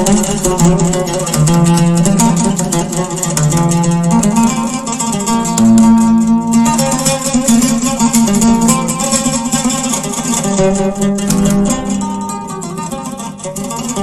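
Oud being played: a flowing melody of quickly plucked notes, the pitch moving between held lower notes.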